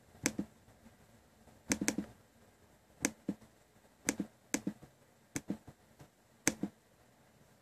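Sharp clicks of a laptop's controls as folders in a music library are clicked through: about a dozen at irregular intervals, several in quick pairs like double-clicks.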